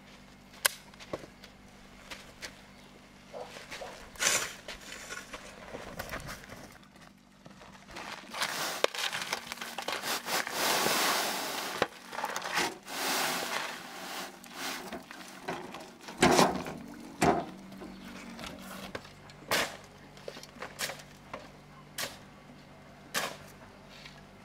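Handwork with wood and stone: scattered sharp knocks and taps, with a longer stretch of rough scraping in the middle and a cluster of heavier knocks after it.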